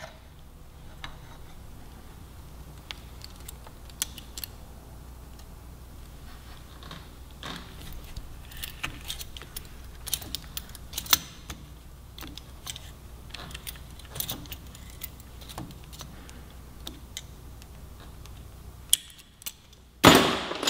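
Steel safety wire being wrapped and twisted around a motorcycle grip with hand tools: irregular small metallic clicks, ticks and scrapes. Near the end comes a louder sudden snap as the wire's tail is cut off.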